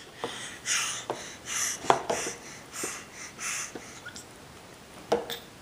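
A run of breathy huffs or snorts, about five in three seconds, with a few light clicks between them.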